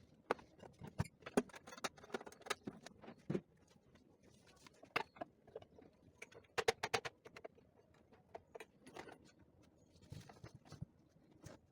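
Irregular clicks, taps and light metallic clinks of the parts of a plastic pipe welding iron being handled and fitted together, in short clusters.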